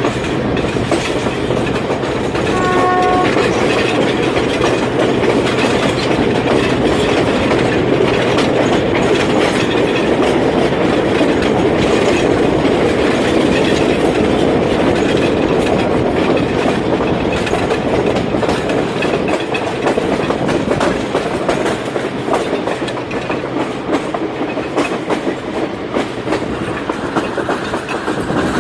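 Train running along the rails, a steady rumble and rattle with rail-joint clicks. About three seconds in comes a brief horn note.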